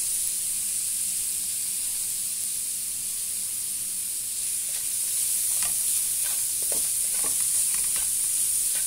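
Chopped onions frying in hot oil in a kadai, a steady sizzle. From about halfway through, a spatula scrapes and taps against the pan a few times as the onions are stirred.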